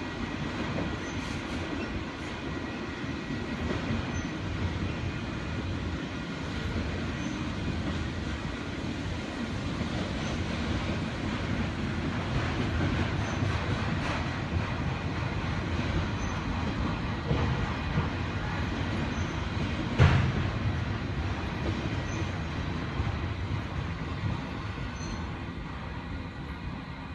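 Freight train cars rolling past a railroad crossing: a continuous low rumble of wheels on rail with faint steady wheel squeal. There is one sharp clank about twenty seconds in, and the sound eases off near the end.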